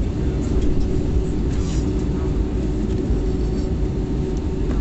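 Airbus A321neo cabin noise on the ground after landing: a steady low rumble with a constant hum.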